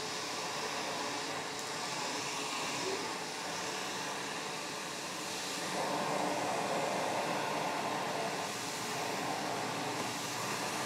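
Philips Turbo Compact TC535 cylinder vacuum cleaner running on straight suction, a steady motor and airflow rush with a faint high whine. The rush gets louder and fuller about six seconds in.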